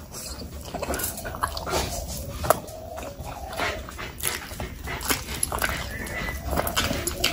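Close-up eating: wet chewing, lip smacks and sharp mouth clicks as pieces of curried meat are bitten and sucked off the bone by hand. A thin wavering high hum comes and goes under it.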